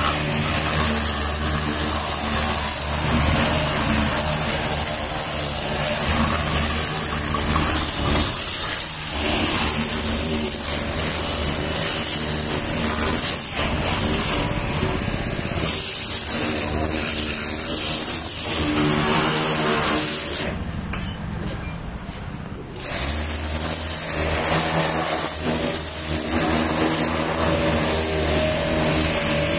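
High-pressure washer running, its motor and pump humming steadily under the hiss of the water jet spraying onto the car's body. The hum cuts out briefly about two-thirds of the way through, then starts again.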